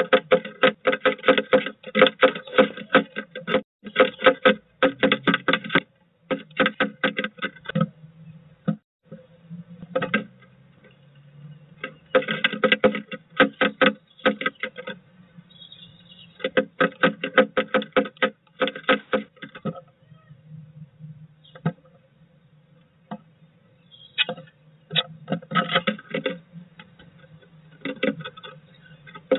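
Blue tit pecking at the wooden floor inside a nest box, chipping out wood in bursts of rapid taps with short pauses between them.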